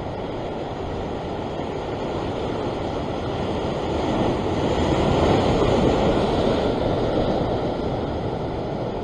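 Ocean waves washing and breaking against the rocks, with wind buffeting the microphone; the wash swells about four seconds in and eases off again.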